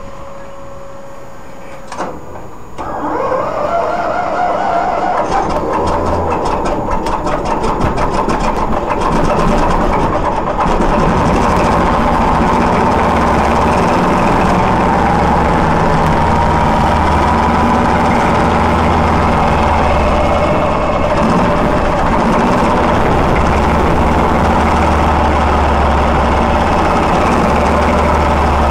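Class 14 diesel-hydraulic locomotive's Paxman 6YJXL diesel engine starting for the first time after overhaul. A sharp click about two seconds in, then a rising whine as it cranks and fires; the engine builds up over several seconds and settles into steady running.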